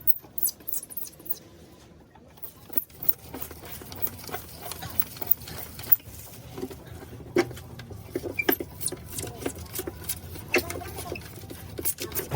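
Irregular sharp clicks and light taps, as of small parts being handled, over a faint low hum.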